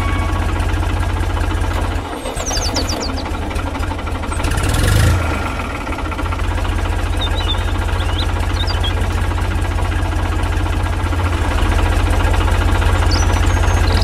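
Tractor engine running with a steady low chug; it dips about two seconds in and swells briefly about five seconds in before settling back. A few short high chirps come and go above it.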